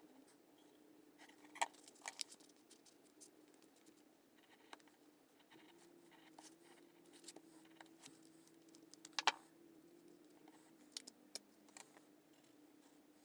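Quiet hand-tool work at a woodworking bench: scattered light clicks and taps of tools and wood being handled, the sharpest about a second and a half in and past the middle, with a few more near the end. A faint steady hum runs underneath.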